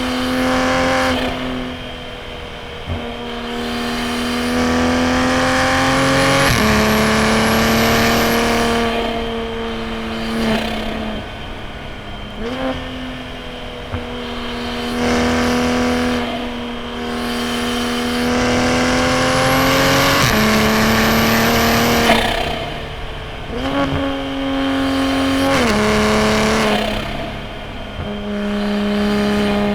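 Toyota A90 Supra's B58 turbocharged inline-six running through a straight-piped titanium single-exit exhaust, driven hard: revs climb under acceleration, then step down at gear changes and lift-offs, several times over, with a faint high whistle rising along with the engine on the longer pulls.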